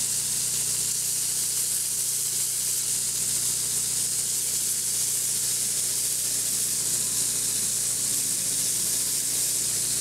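Grizzly belt sander running with a steady hum while a celluloid pocket-knife handle cover is held against the moving abrasive belt, making an even hiss, to take out the deeper scratches.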